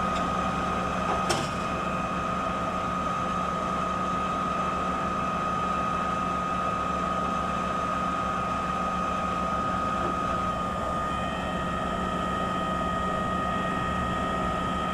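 Putzmeister 42-5 concrete pump truck running steadily, with a constant high-pitched whine over the engine hum. There is one brief click about a second in.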